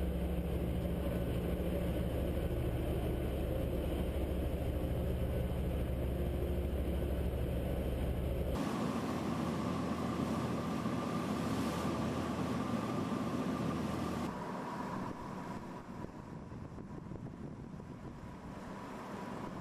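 Steady low machinery hum. It changes abruptly about eight and a half seconds in and again about fourteen seconds in, growing quieter after the second change.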